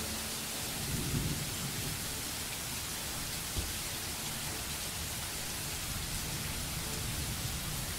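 Steady rain, an even hiss, with a low rumble of thunder about a second in and a single short tap about three and a half seconds in.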